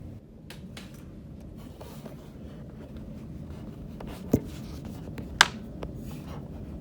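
Plastic ink cartridge being handled and pushed up into a Canon Pixma inkjet printer's cartridge carrier: a few light taps, then a knock about four seconds in and a sharp click about five and a half seconds in as it snaps into place.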